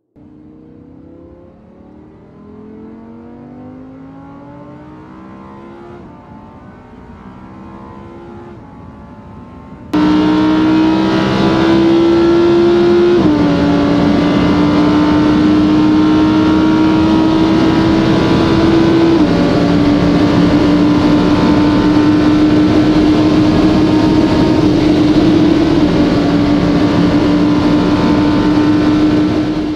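Sports car engine accelerating, its pitch climbing and dropping back with each gear change, fairly quiet at first. About ten seconds in it turns suddenly much louder: a steady high-speed engine note that dips slightly in pitch three times as it shifts up.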